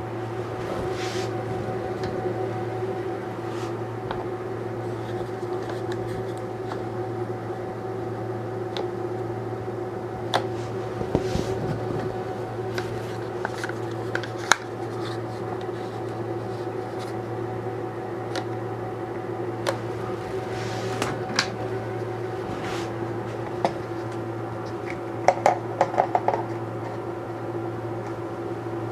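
One-handed bar clamps being set and squeezed onto a glued box: scattered sharp clicks, then a quick run of ratchet clicks about 25 seconds in. Under it runs a steady low hum.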